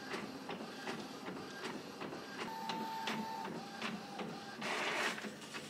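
Inkjet all-in-one printer making a copy: the print mechanism runs with a steady rhythm of small clicks and whirs, a brief high tone sounds in the middle, and a short rushing whir comes near the end.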